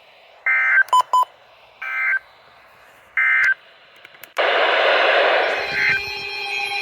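EAS end-of-message signal over NOAA Weather Radio: three short bursts of warbling digital data tones, a little over a second apart. About four seconds in, loud radio static rises. Near the end, a new data-tone burst begins: the SAME header of the next alert.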